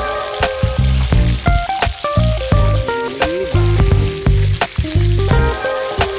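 Background music with a melody and bass line, over fish sizzling in a frying pan on a campfire grill.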